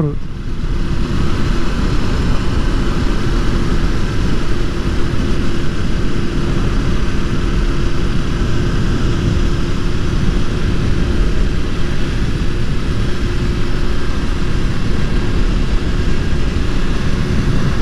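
Motorcycle cruising at a steady speed: wind rushing over the microphone, with the engine's steady drone underneath holding one even pitch.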